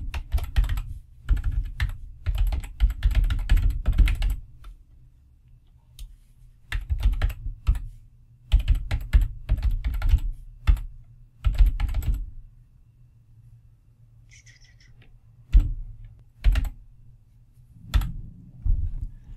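Typing on a computer keyboard: bursts of rapid keystrokes broken by short pauses, then a few single key presses near the end.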